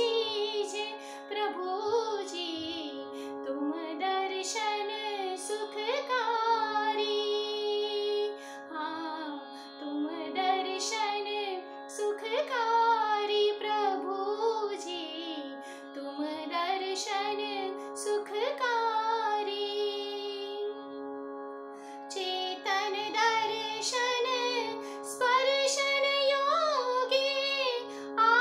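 A woman singing a Jain stavan (devotional hymn) in Indian classical style, with gliding, ornamented phrases and short breaths between them, over a steady drone note held underneath.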